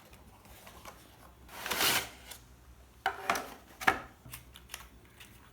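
Packaging being handled while unboxing: a rustling slide about one and a half seconds in, then a few sharp clicks and taps.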